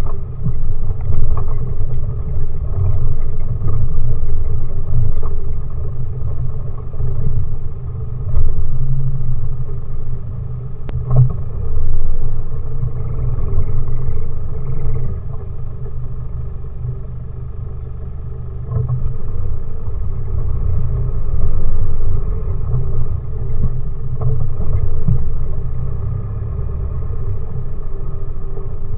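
Off-road 4x4 vehicle engine running with a low rumble that swells and eases every few seconds, with an occasional knock.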